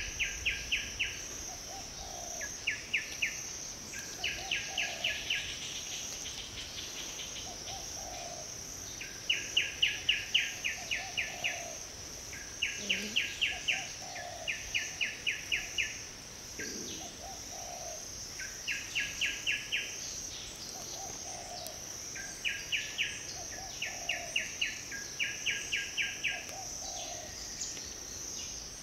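Outdoor insect and bird ambience: a steady high insect buzz under a repeating trill of about eight quick chirps a second, each trill lasting about a second and coming back every one to two seconds.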